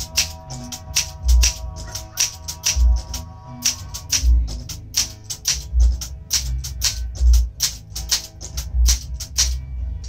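1968 Olympia SM8 manual portable typewriter being typed on at a quick, fairly even pace: sharp typebar strikes against the platen, about four to five a second, many with a low thump.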